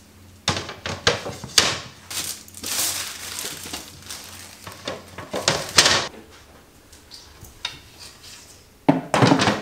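Knocks, taps and scraping as a light wooden table frame and a flat panel are handled and set together, with a few louder clatters about five and a half seconds in and again near the end.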